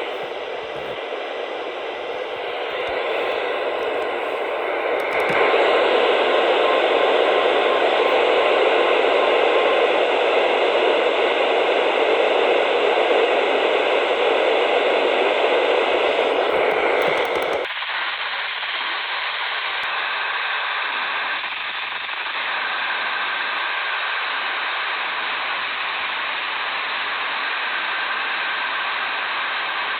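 Static hiss from a software-defined radio receiver on the NOAA Weather Radio band with no clear station coming through, louder from about five seconds in. About two-thirds of the way through it changes abruptly to a quieter, duller hiss that then holds steady.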